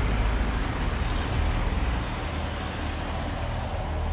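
Steady motor-vehicle and road-traffic noise with a deep low hum, easing slightly about two seconds in.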